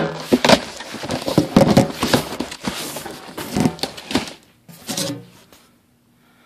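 Rustling and crackling of packaging being handled as a box is opened, dense and irregular, dying away about five seconds in.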